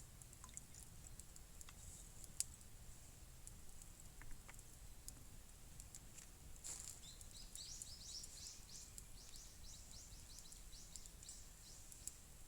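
Faint bird call: a quick run of short high notes, starting about seven seconds in and lasting about four seconds, over faint scattered clicks.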